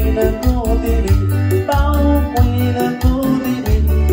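Loud Latin dance music played over a sound system: a heavy bass line under a quick, steady percussion beat and a melody line.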